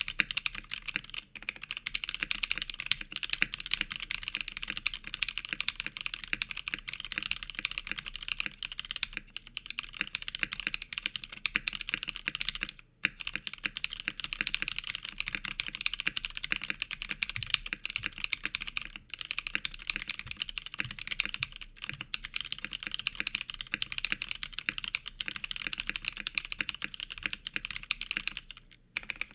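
Continuous fast typing on a custom mechanical keyboard fitted with lubed linear Novelkeys Cream switches, a 3mm acrylic plate and PBT keycaps: a dense run of clacking keystrokes with a couple of brief pauses, one about thirteen seconds in and one near the end.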